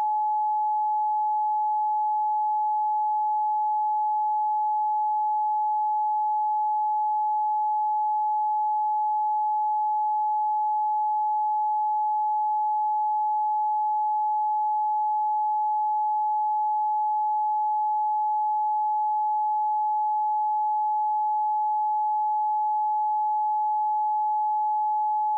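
A steady electronic sine-wave tone held at a single pitch and an even level, with no change throughout.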